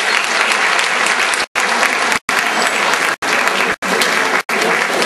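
Theatre audience applauding steadily, with the sound cutting out abruptly to silence for a split second about five times.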